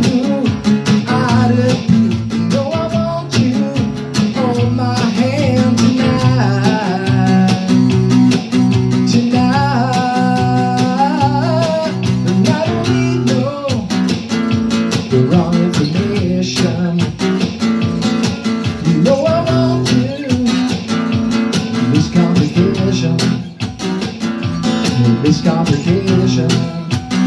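Acoustic guitar strummed steadily through an instrumental break between sung lines. A voice sings or hums wordlessly over it at times, with a wavering held note near the middle.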